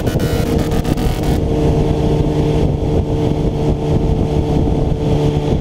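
Music stops abruptly about a second and a half in, leaving a motorcycle engine running steadily at cruising speed, with wind and road noise at the bike-mounted microphone.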